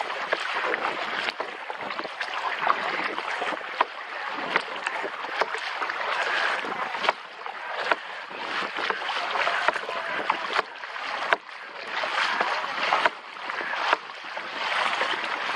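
Water splashing and sloshing around a kayak as it is paddled, with many short slaps and knocks.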